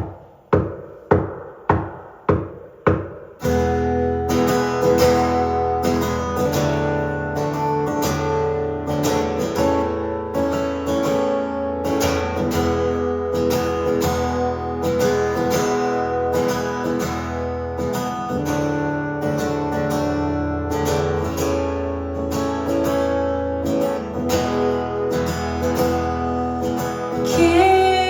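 Live band music: an intro of separate struck chords, about two a second, each left to ring out. After about three seconds the full band comes in and plays on steadily.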